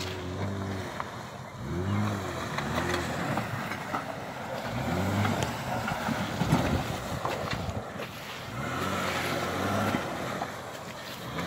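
Honda Ridgeline pickup's V6 engine revving in repeated surges, rising and falling about three times, as its tyres churn through soft, deep mud trying to drive out of the ruts.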